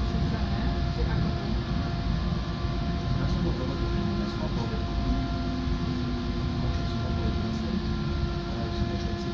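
Interior of a Vario LF2 plus low-floor tram in motion: a steady rumble of wheels on the rails with several steady whining tones, a lower tone joining about halfway through.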